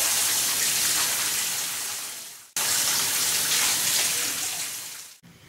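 Water spraying from a handheld detachable shower head onto hair in a bathtub during a rinse: a steady hiss that dies away and cuts off abruptly about halfway, starts again at once, and fades and cuts off again near the end.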